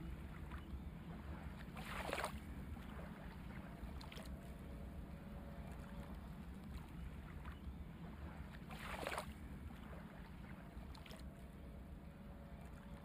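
Truck engine running low and steady while the truck slows to a stop at a light, heard from inside the cab, with two short hisses about two seconds in and again near nine seconds.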